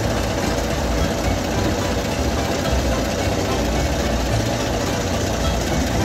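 Vintage International Harvester crawler tractor's engine running steadily with a low, even rumble.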